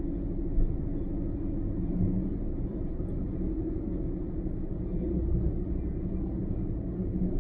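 A car driving at road speed: a steady low rumble of engine and tyre noise, with a brief bump about half a second in.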